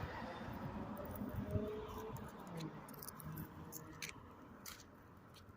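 Scattered light, sharp clicks and ticks at an uneven pace during a walk with a dog on a leash. Under them is a low rumble that fades over the first couple of seconds.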